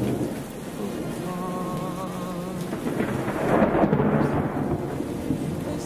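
Thunderstorm: steady rain with rolling thunder that swells about three and a half seconds in. A wavering held note of the song sounds beneath it.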